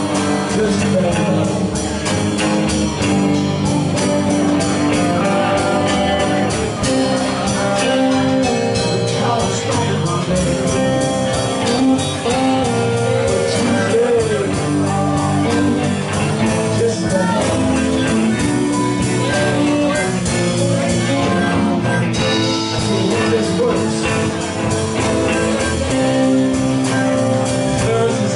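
Live blues-rock band playing: electric guitars, bass guitar and drum kit, with a harmonica played over them.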